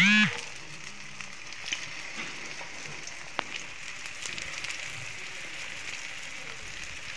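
Potato-and-chicken kababs shallow-frying in hot oil on a flat tawa: a steady, even sizzle with a few sharp pops.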